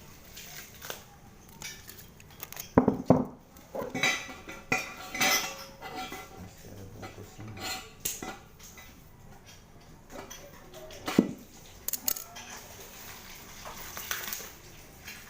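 Irregular metal clanks and clinks as a motorcycle exhaust muffler and its fittings are handled and set down, with the loudest knocks about three and eleven seconds in.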